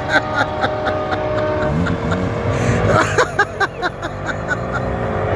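Train-style air horn on a Ford F-250 Super Duty, a chord of several steady tones, cutting off about a second and a half in. Engines then rev with a rising pitch.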